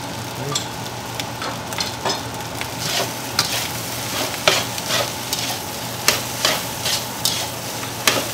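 Egg fried rice sizzling in a frying pan as a spatula stirs and scrapes through it. From about two seconds in, the sharp scraping strokes come about twice a second.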